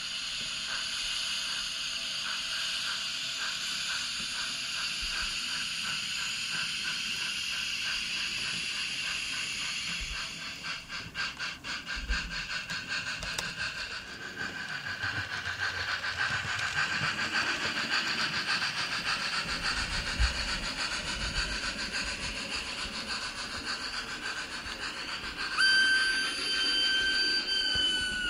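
Digital sound decoder of an H0-scale Jouef SNCF 140 C steam locomotive model playing steady steam hiss, with a spell of quick chuffs about ten seconds in. Near the end a steam whistle sounds, holds for a couple of seconds, then drops in pitch as it stops.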